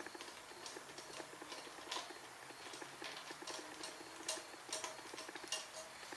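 Light, irregular metal clicking and ticking of a hand tool working the hex bolts on a Briggs and Stratton 5 hp engine's carburetor and throttle linkage, with a few sharper clicks in the second half.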